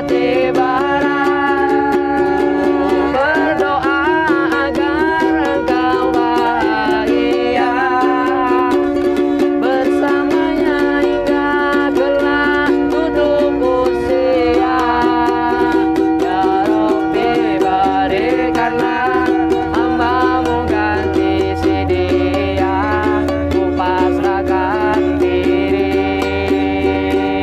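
A ukulele strummed steadily, with a man singing along.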